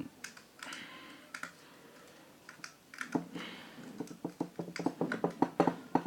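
Small clicks and taps of hands working on an electric fan's parts and wiring, scattered at first, then a quick run of clicks, several a second, from about halfway through.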